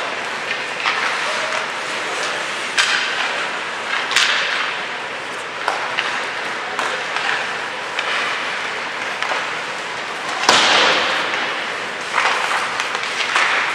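Ice hockey practice on an indoor rink: skate blades scraping and cutting the ice in short bursts, with sharp clacks of sticks and pucks. About ten and a half seconds in comes the loudest sound, a hard hit followed by a longer scrape.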